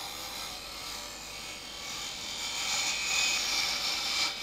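Wood lathe with a 1/8-inch high-speed-steel parting tool cutting into the end of a spinning spindle blank: a steady hiss of shavings that grows louder, with a brief dip near the end.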